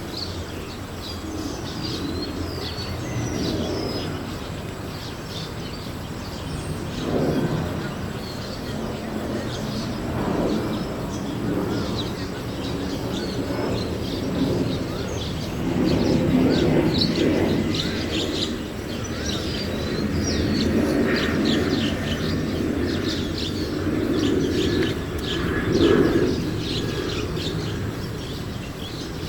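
Many birds chirping and trilling together in trees: a dusk chorus, which the uploader takes for birds coming back to their nests. Underneath, a low rumble swells and fades several times.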